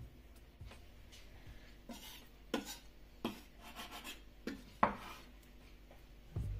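Knife cutting a rolled log of soft cheese dough into pieces, the blade knocking on the countertop about six times at uneven intervals, with some rubbing between cuts.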